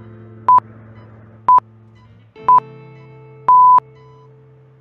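Quiz countdown timer beeping once a second: three short high beeps, then a longer final beep near the end as time runs out, over soft sustained background music.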